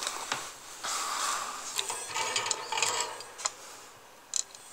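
Light scraping and rubbing in several short spells, with a few small clicks, as a tool and fingertips work at a phone circuit board around its micro-USB charging jack.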